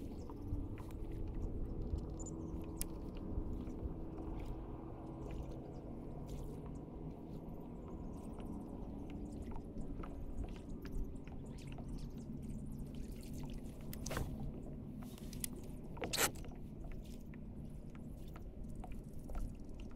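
Small water slaps and drips against a fishing kayak's hull over a low steady hum, with scattered light clicks and two sharper knocks past the middle from gear being handled on the kayak.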